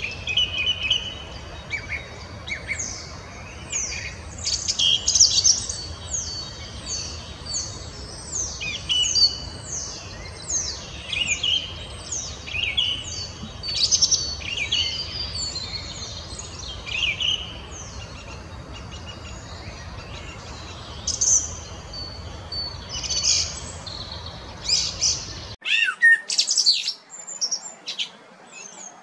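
Song thrush singing: a long, lively run of short, high, clear notes and phrases over a low background rumble. Near the end the recording cuts off sharply to a different one with other birdsong.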